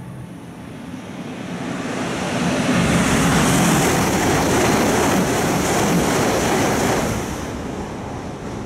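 Shinkansen bullet train passing at high speed: a rush of noise that builds over the first couple of seconds, stays loud for about five seconds as the train goes by, then drops off sharply near the end.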